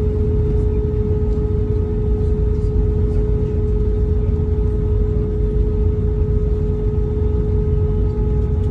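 Airbus A319 cabin noise: a loud, steady low rumble of engine and airflow, with a steady whine running through it.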